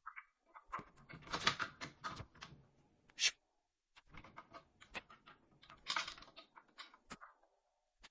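Quick clicking and rattling of hands working a Fire-Lite BG-12 pull station into place on its mounting, in two spells of a few seconds each with one sharp click between them.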